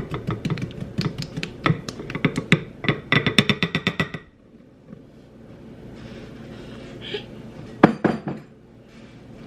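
Rapid clinking taps of a container knocking against a mixing bowl as cocoa powder is shaken in, several a second for about four seconds, then stopping; a couple of duller knocks near the end.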